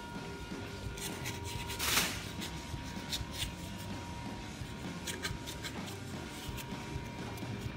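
Short scratchy strokes of the Nissan YD25 engine's thermostat housing mating face being scraped and rubbed clean after the old thermostat is removed, with one louder stroke about two seconds in.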